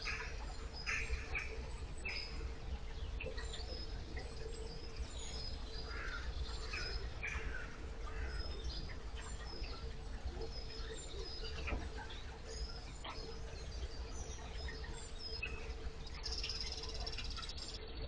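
Propeller of an electric narrowboat churning water in a steady low rush inside a brick canal tunnel, with a faint steady hum and scattered short, high chirp-like sounds.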